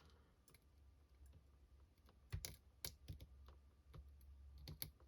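Faint sharp clicks and small snaps, a handful between about two and five seconds in, as an electric hot knife cuts through 3D-printed resin support structures on small model propeller parts. A low steady hum lies underneath.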